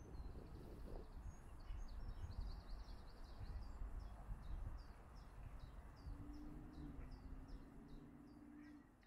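Small birds singing: a high trill in the first few seconds, then a run of short, high, falling chirps at about three a second, over a steady low rumble. A faint steady hum joins in the last few seconds.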